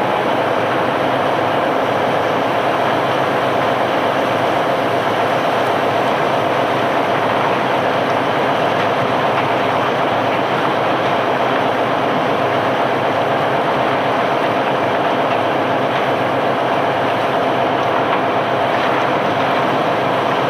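Ship-unloading machinery running steadily: a dense, even mechanical noise with no pauses.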